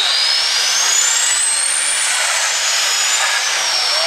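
Heavy super stock pulling tractor's turbocharged diesel engine at full throttle under load on the sled. A high turbo whine climbs in pitch for about two seconds, then falls back.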